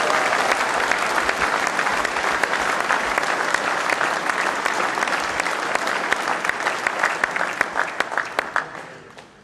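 Large audience applauding: dense, steady clapping that thins to a few separate claps and dies away near the end.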